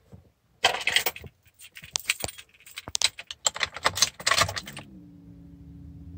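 Keys jangling and clicking. About five seconds in, the old pickup truck's engine starts and settles into a steady idle.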